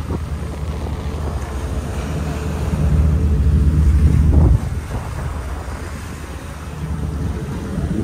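Excursion yacht under way: a steady low engine drone, with water rushing along the hull and wind buffeting the microphone. The wind rumble is heaviest in the first half and drops suddenly about halfway through.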